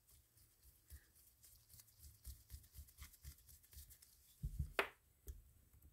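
Faint small clicks and scrapes of a screwdriver turning the set screw into a spinning reel's main drive shaft, with metal parts of the reel being handled. A louder knock comes about four and a half seconds in.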